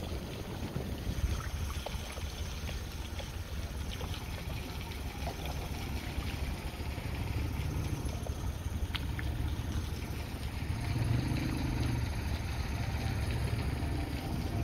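Wind buffeting the microphone: a steady low rumble, outdoors in the open.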